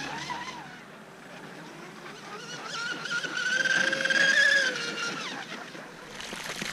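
Joysway Bancroft Mad Flow V3 F1 tunnel RC boat running a high-speed pass on a 4S battery, its electric motor and propeller giving a high whine. The pitch rises as the boat comes closer, is loudest about four seconds in, then drops as it passes and fades.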